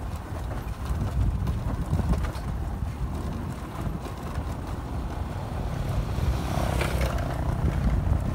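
Wind buffeting the microphone over the low rumble of a vehicle travelling on a gravel road. There is a brief higher-pitched sound near the end.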